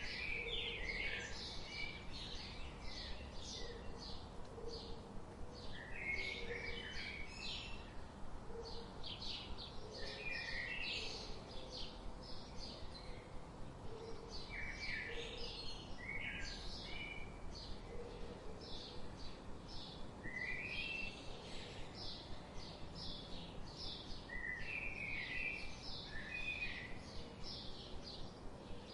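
Several birds singing and chirping at once: a steady chorus of short, high chirps and quick trills, with a faint low background hiss.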